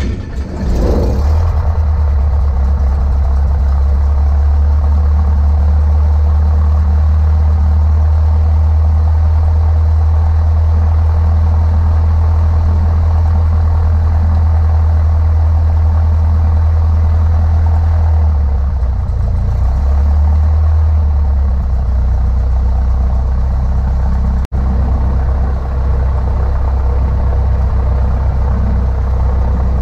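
Cessna 152's four-cylinder Lycoming O-235 engine catching about a second in after cranking, then running at a steady idle, heard from inside the cockpit. The engine note shifts briefly about two-thirds of the way through, then settles again.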